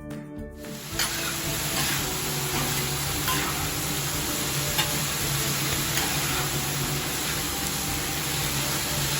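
A steady sizzling hiss that starts about a second in. Autumn insects trill behind it in two high, unbroken tones.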